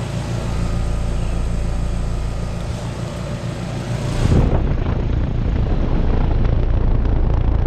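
2017 4-ton Trane XR14 heat pump's outdoor unit starting up in heat mode, its scroll compressor running with a steady hum. About four seconds in, the sound jumps louder, with a low rushing noise added.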